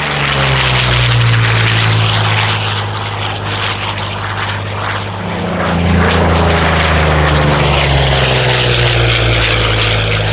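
Curtiss P-40 Warhawk's Allison V12 engine and propeller droning steadily as the fighter flies by during an aerobatic display. Its pitch drifts slightly down, and it grows louder again about six seconds in.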